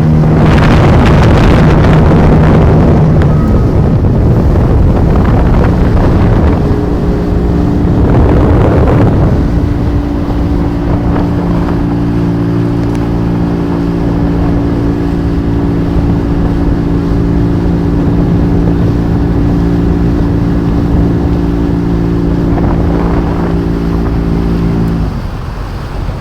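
Boat engine running at a steady pitch under the rush of wind and water; the engine note cuts off near the end, leaving only the wind and water noise.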